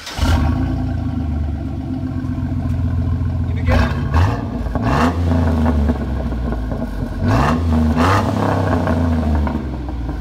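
2006 GMC Sierra 4.3-litre V6 exhaust through a Flowmaster Super 10 muffler and dual side-exit tips. The engine starts up at the very beginning and idles with a solid rumble. It is revved twice, about four seconds in and again around seven to eight seconds in.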